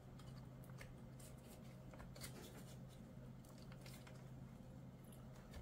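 Near silence: a faint steady low hum with a few light clicks and taps of laptop parts being handled.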